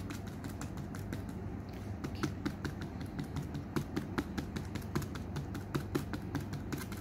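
A small paint-loaded scrubber dabbing against a canvas board, making a run of quick light taps, several a second.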